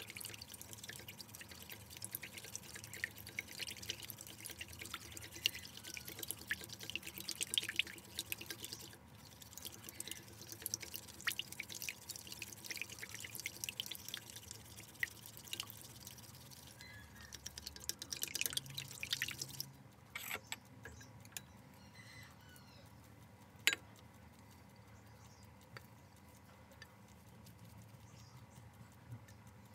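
Eggs being beaten with chopsticks in a ceramic bowl: a quick run of light clicks and wet sloshing, with a short break partway. It stops about two-thirds of the way through, leaving a few scattered knocks.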